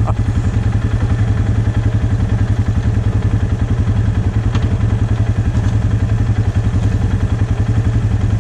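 ATV engine idling steadily close by, with a fast, even pulsing.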